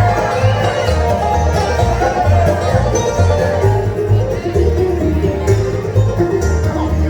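Live bluegrass band playing an instrumental break, banjo picking over guitar with a steady upright-bass pulse about twice a second.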